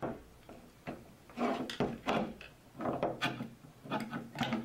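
Handling noise from an old Argo mechanical taximeter: its inner mechanism being worked and slid out of the metal housing, giving a run of irregular clunks, knocks and scrapes.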